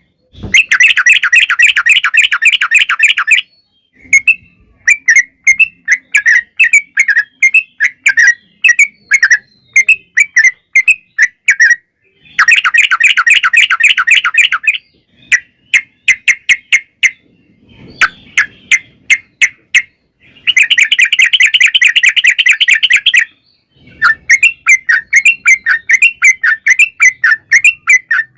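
Yellow-vented bulbul (trucukan) song: loud, bubbly chattering phrases repeated again and again, broken three times by a long, rapid rattling trill (the 'ropel').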